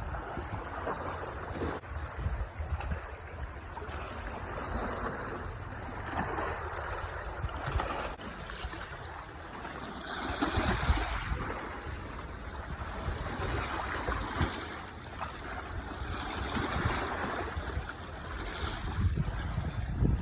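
Gusty wind rumbling on the microphone over river water washing along the bank, rising and falling in strength.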